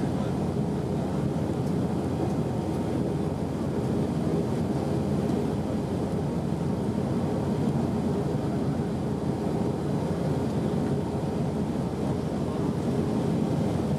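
Steady drone of the jet engines and rushing air inside an Airbus A319 cabin during the climb after take-off, heard from a window seat behind the wing. The sound is deep, even and unchanging.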